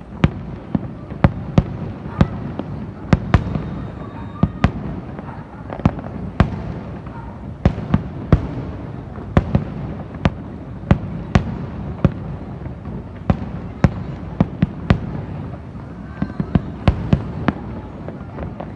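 Fireworks display: a dense, irregular run of sharp bangs and cracks, about two or three a second, over a continuous low rumble of further bursts.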